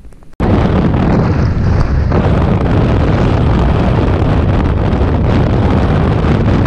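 Wind rushing over the microphone of a camera worn by a motorcycle rider at road speed, with the motorcycle's running engine and road rumble underneath. It cuts in suddenly about half a second in and then holds steady and loud.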